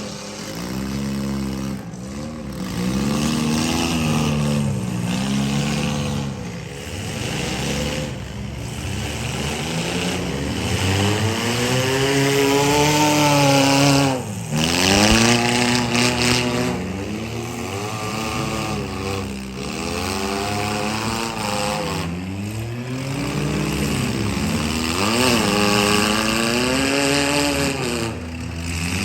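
Compact and midsize derby car engines revving hard again and again, their pitch rising and falling as the cars accelerate, reverse and ram one another. Often more than one engine is heard at once.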